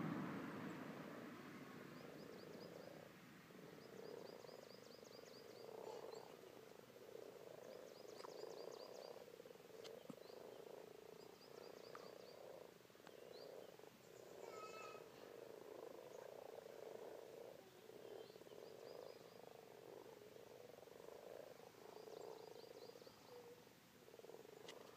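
Chorus of common frogs at a spawning gathering in a pond: many soft, low purring croaks overlapping without a break. Short, high, rapid trills come in every few seconds over it.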